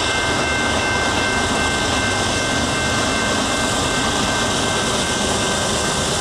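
Long freight train of intermodal and autorack cars rolling past: a steady rumble and rush of steel wheels on rail, with a thin steady high tone over it.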